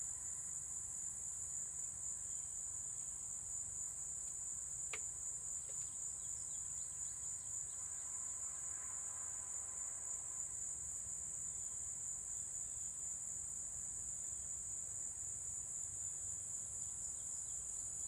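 Steady high-pitched insect chorus, like crickets, with a faint low hum underneath and one faint click about five seconds in.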